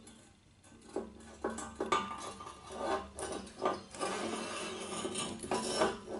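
Honda CX500 drive shaft being worked into the swing arm from the front: metal scraping and rubbing, broken by a series of sharp clinks and knocks.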